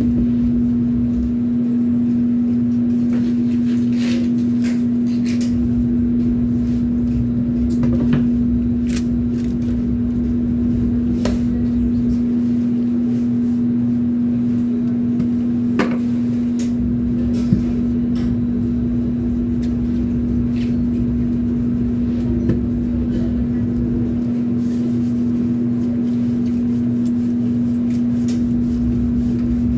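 Steady hum of running kitchen machinery, such as the conveyor pizza ovens, with one strong low tone and a rumble beneath. Scattered light clicks and knocks come from work at the counter.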